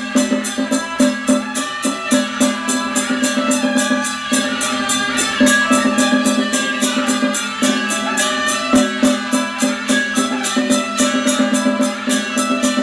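Traditional Taiwanese temple ritual music: a held pitched tone with layered melody lines over percussion, likely cymbals and gongs, struck in a fast, even beat.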